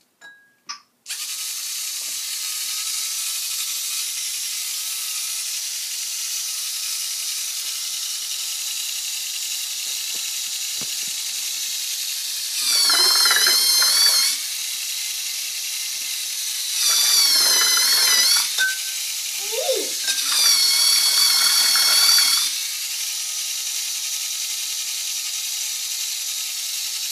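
LEGO Mindstorms NXT motor whirring in three bursts of a couple of seconds each, spinning the beater of a homemade blender in a glass of water, with a wavering high whine. A steady hiss runs underneath.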